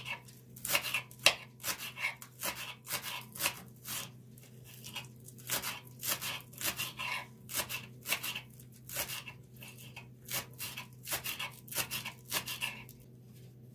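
Kitchen knife slicing green onions into rings on a wooden board: a steady run of quick crisp cuts, two or three a second, stopping shortly before the end.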